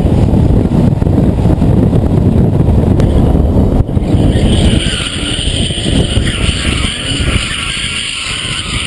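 Loud, dense rumble of wind and road noise at speed; then, after a cut, from about five seconds in, the tyres of a BMW E34 M5 squealing steadily as the car slides sideways in a drift.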